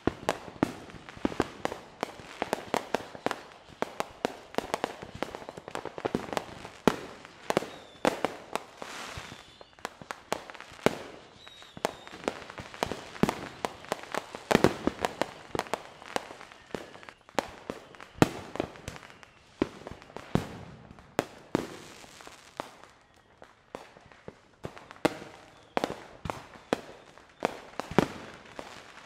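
Fireworks display: a dense barrage of aerial shell bursts and pops, several a second, with crackling between them. The barrage thins out briefly a little past the twenty-second mark, then picks up again.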